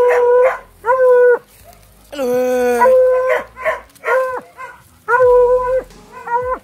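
Hunting dog baying at an armadillo burrow: about nine drawn-out, high barks in quick succession, each holding one pitch. This is the dog calling that the armadillo is holed up in the burrow.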